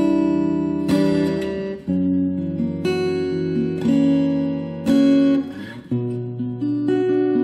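Future FAG006C cutaway acoustic-electric guitar fingerpicked, chords and melody notes ringing with a new chord struck roughly once a second.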